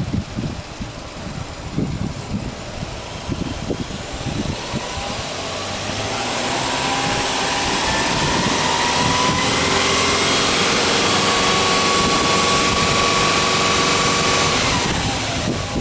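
Subaru Legacy 2.5GT's turbocharged EJ25 flat-four engine idling, then revved up steadily from about four seconds in. It is held at high revs for several seconds and dropped back to idle near the end.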